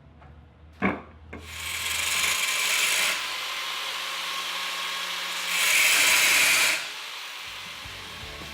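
Angle grinder grinding into a doorknob: a harsh, gritty hiss that starts about a second and a half in, swells loudest around six seconds in and then eases off.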